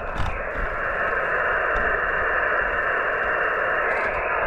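Steady hiss of 20-metre band noise from a Yaesu FT-891 HF transceiver's speaker on single-sideband receive. The receiver is open and listening for a reply after a CQ call.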